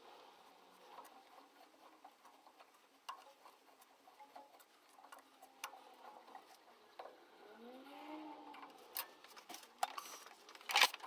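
Light metallic ticks and clicks of a hex key and screw being worked into the lathe's cross-slide by hand, with a short rising-and-falling squeak about eight seconds in and a sharper metal clink near the end.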